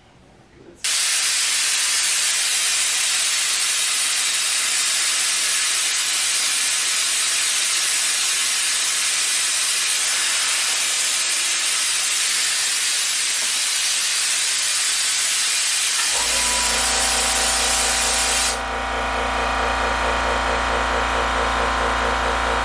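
Compressed air from a Northstar 8-gallon air compressor blowing out through an air gun: a loud steady hiss that starts about a second in, as the tank is discharged and condensation is blown out of the hose. Near the end the compressor's motor and pump start with a steady low hum, and soon after the hiss falls away, leaving the compressor running.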